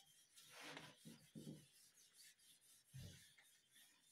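Whiteboard eraser rubbing across the board in a few short, faint wiping strokes.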